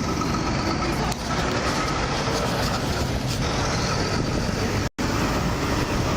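Steady vehicle rumble and road noise picked up by a body-worn camera, with a faint whine above it; the sound cuts out for an instant near the end.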